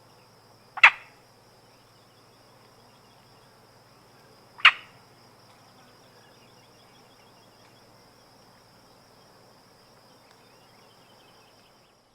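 Frog croaking: two short, loud calls about four seconds apart, over a steady, faint high-pitched background tone. The recording cuts off just before the end.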